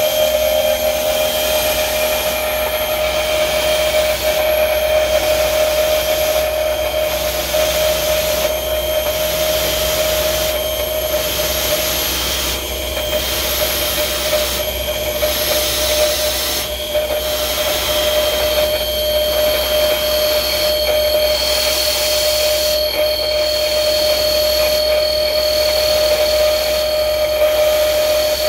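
CNC drill line spindle milling a large round hole in steel plate, the cutter working its way around the circle. A steady whine runs over a loud hiss that dips briefly about every second and a half.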